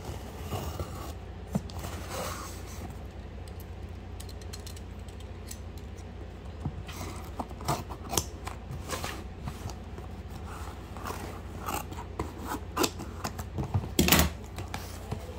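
A shipping box being opened and its packing handled by hand: scattered clicks, snips and scrapes, sparse at first and busier in the second half, with a louder burst of rustling near the end.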